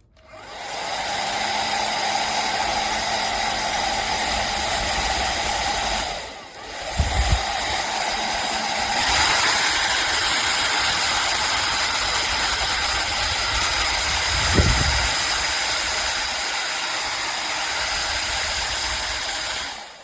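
Remington ONE Dry & Style ionic hair dryer running, its fan blowing a steady rushing hiss. It drops out briefly about six seconds in, comes back and runs louder and brighter from about nine seconds on, and cuts off sharply near the end. Two short low thumps come around seven and fifteen seconds.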